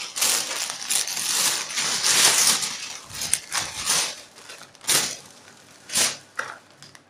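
Thin plastic shopping bag rustling and crinkling as plastic-wrapped squishy toys are handled and packed into it, dense for the first three seconds or so, then a few short separate rustles.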